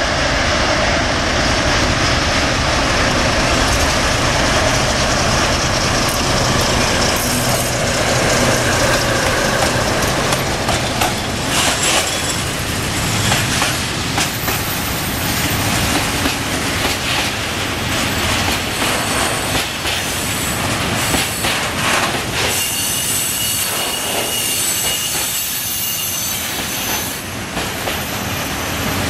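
Freight train of tank wagons passing close by, hauled by a diesel locomotive. The locomotive's engine drone comes first, then the wheels clack over the rail joints, with a high wheel squeal a little before the end.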